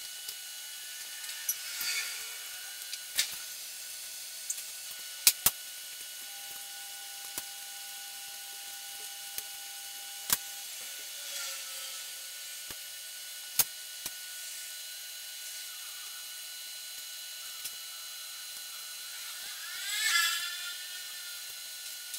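Sharp metal clicks and taps of small parts and hand tools being handled while an electric motor's end cover and terminal box are reassembled, a few seconds apart. A faint steady high whine runs underneath, and short whirring sounds come and go, the loudest near the end.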